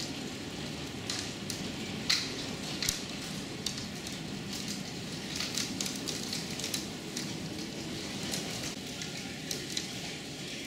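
Heavy rain and hail falling, heard from behind a window: a steady hiss with scattered sharp ticks of hailstones striking, the loudest about two seconds in.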